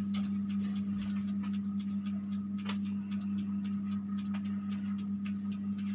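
A steady low hum with light, irregular clicks a few times a second scattered over it.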